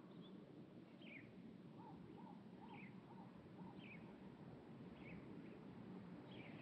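Faint bird calls: a high, short, downward-slurred chirp repeated about once a second, joined partway through by a lower run of five quick notes, over faint low background noise.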